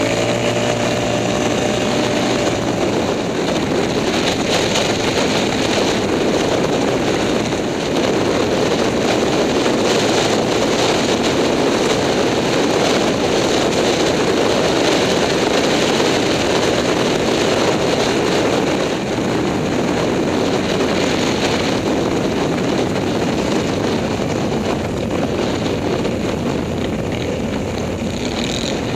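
ATV engine running steadily under way, heard from the rider's seat, with a clear engine tone in the first few seconds that then merges into a steady dense rush of engine and riding noise.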